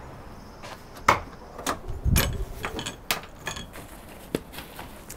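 Rear cargo doors of a Winnebago Solis camper van being opened: latch and handle clicks, a low thump about two seconds in, then several more sharp clicks and knocks.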